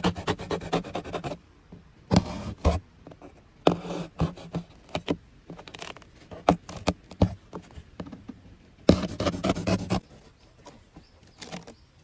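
Utility knife blade slicing through corrugated cardboard: bursts of rapid scraping strokes with short pauses between them.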